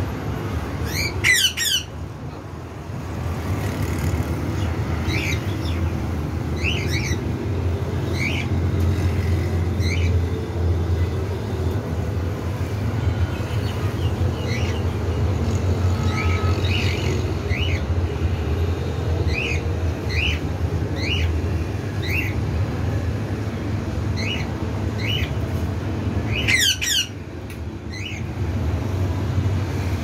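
Cockatiels calling: short chirps repeat every second or so, with a louder burst of harsh screeches about a second in and again near the end. A steady low rumble runs underneath.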